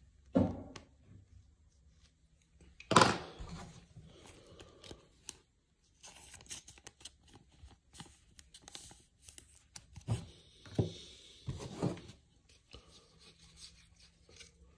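A trading card slid into a clear plastic sleeve and rigid toploader: plastic rustling and scraping, many small clicks, and two sharp knocks near the start, the loudest sounds.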